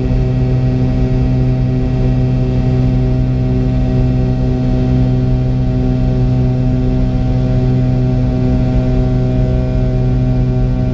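McDonnell Douglas MD-82's rear-mounted Pratt & Whitney JT8D turbofan engines running steadily at low power while the aircraft taxis, heard from inside the cabin right beside the engine. A steady deep drone with several fixed whining tones above it, with no spool-up.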